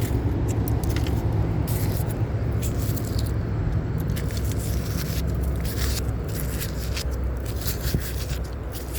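Irregular scraping and clicking of nails, wire and scrap metal being pulled off a strong fishing magnet by gloved hands, over a steady low rumble.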